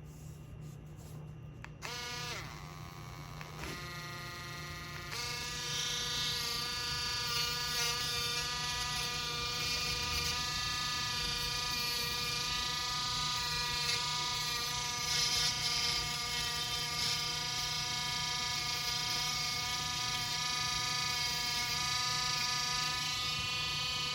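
HARDELL mini cordless rotary tool's motor whining. It starts about two seconds in, steps up in pitch a few times as the speed is raised, then runs steadily at high speed.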